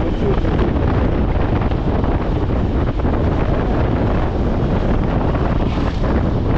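Wind buffeting the microphone of a camera on a moving motorcycle: a steady rushing noise with no clear engine note.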